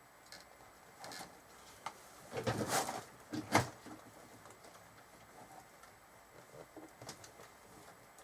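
Rustling and scraping of PC cables and parts being handled inside a computer case, with scattered clicks: a longer rustle about two and a half seconds in and a sharp click about a second later.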